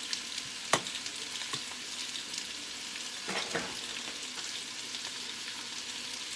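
Chicken tenders sizzling in a little hot oil in a frying pan, a steady hiss, with one sharp click about a second in and a brief fainter sound around three and a half seconds.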